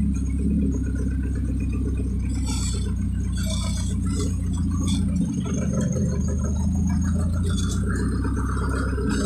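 Vehicle engine running steadily, heard from inside the cab while driving slowly over a rough dirt road, with scattered rattles.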